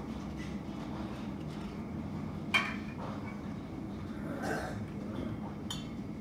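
Steady low hum of airport ramp background noise. A sharp clink about two and a half seconds in is the loudest sound, a short softer sound follows around four and a half seconds, and another click comes near the end.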